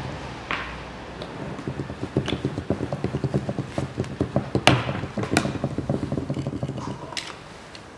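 Plastic motor-oil jug handled by a gloved hand: a run of quick soft knocks and rustles, with a few sharp clicks in the middle.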